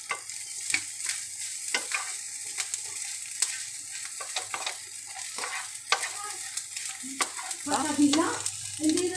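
Clam meat frying in coconut oil, sizzling steadily while a spatula stirs it round the pan, with frequent sharp scrapes and clicks of the spatula against the pan. The stirring gets louder about eight seconds in.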